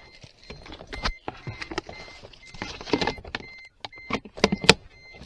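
Clattering knocks and rustling of a landing net and fishing gear being handled on the floor of an inflatable boat, with irregular sharp knocks, the loudest about four and a half seconds in.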